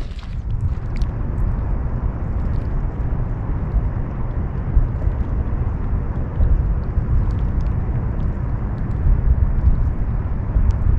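Steady low outdoor rumble with a lighter hiss over it and no distinct events.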